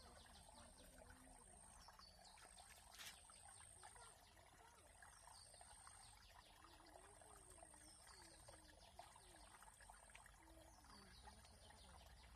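Near silence: faint trickling water with a high, steady insect trill that breaks off and resumes every second or so, and a faint high falling call repeating every few seconds.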